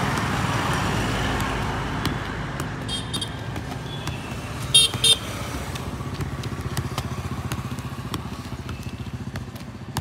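A passing motor vehicle's engine, loudest at first and fading, with faint taps of a football being juggled on the feet. Two short high-pitched horn toots sound about five seconds in, the loudest thing here, after a fainter one about three seconds in.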